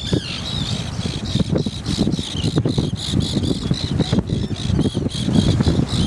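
A tern colony calling: many short, high, harsh calls in quick succession, over a low rumble of wind and breaking waves.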